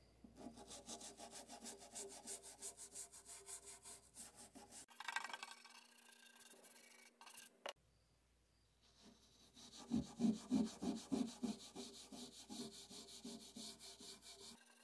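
A toothbrush and a hand scrubbing the plastic top panel of an electronic xylophone with quick back-and-forth strokes, several a second, working melted glue residue off. The scrubbing stops for a few seconds around the middle, then starts again, loudest just after it resumes.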